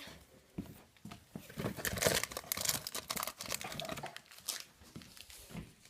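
Chip-bag packaging crinkling and crackling irregularly as it is handled, from about half a second in until near the end. The bags are a microwave-shrunken chip bag and a full-size one.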